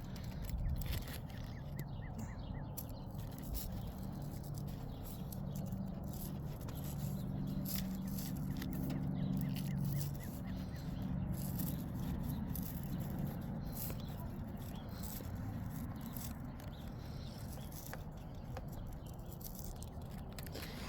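Swiss Army knife can-opener blade scraping and clicking along the seam of a dip can as it cuts through it, in many small irregular scratches, over a steady low hum.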